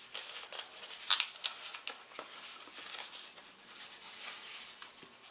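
Hands rummaging through an electronics box's packaging to get at the cable: irregular rustling and scraping of cardboard and plastic, with scattered small clicks and one sharper snap about a second in.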